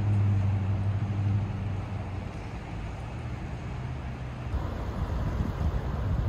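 A steady low engine hum that fades away over the first few seconds. Near the end, wind buffets the microphone in low, uneven gusts.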